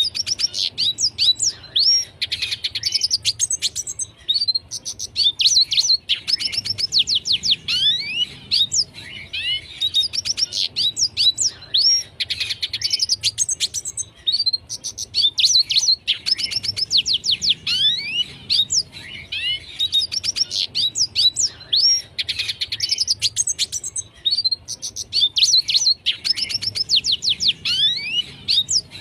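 Red siskin singing vigorously: long runs of fast, high twittering notes that sweep up and down, broken by brief pauses every few seconds.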